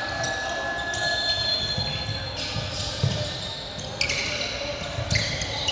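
Basketball thumping on a hardwood court a few times, with rubber-soled sneakers squeaking in short, high squeals as players cut and run.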